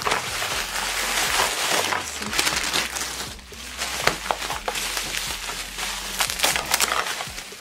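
Plastic packaging crinkling and rustling as it is handled and pulled open, first a grey poly mailer bag, then bubble wrap, with many sharp crackles throughout.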